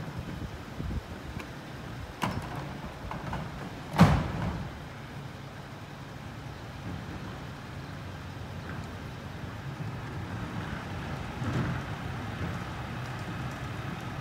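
Steady low engine rumble of an idling vehicle, with a few light knocks and one loud, sharp bang about four seconds in.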